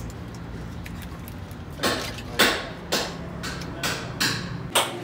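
A series of sharp knocks, about half a second apart, starting about two seconds in, over a steady low rumble that cuts off just before the end.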